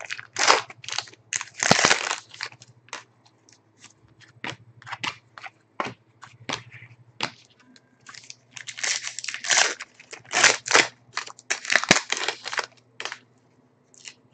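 Trading-card pack's foil wrapper crinkling and cards being handled, in clusters of short crackling rustles with pauses between them.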